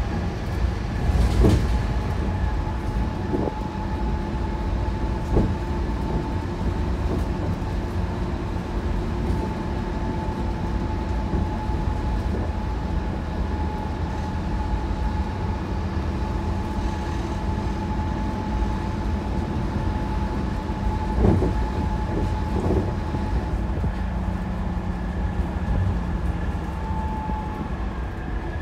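Inside a Scania K230UB single-deck bus under way: the rear-mounted nine-litre five-cylinder diesel running with a steady whine over the low road rumble, and a few knocks and rattles from the body, the loudest about a second in and again about two-thirds of the way through.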